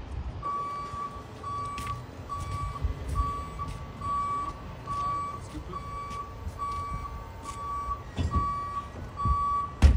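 A heavy vehicle's backup alarm beeping steadily: one high, even tone repeating a little more than once a second, over a low engine rumble. A sharp knock comes near the end.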